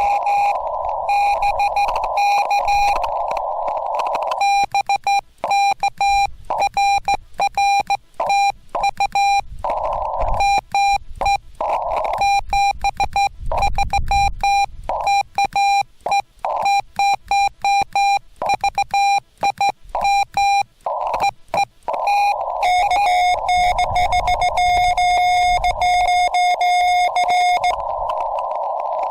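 Morse code on a Yaesu FT-891 transceiver: a single beeping tone keyed in dots and dashes, alternating with the hiss of the radio's narrow CW receive filter. Near the end a slightly lower steady tone holds for about five seconds over the hiss.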